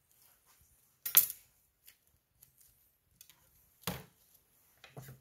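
A few sharp clicks and knocks of serving utensils against a wooden board and plates on a steel counter while meat is plated. The loudest comes about a second in, another near four seconds.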